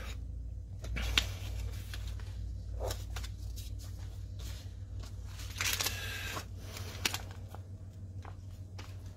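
Handling noises at a tabletop: soft rustling of paper and plastic with a few light taps, and a louder rustle about six seconds in, over a low steady hum.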